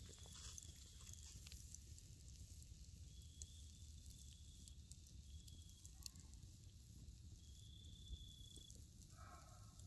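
Quiet wood campfire: faint crackling with a few small pops. A high steady tone comes and goes several times over it.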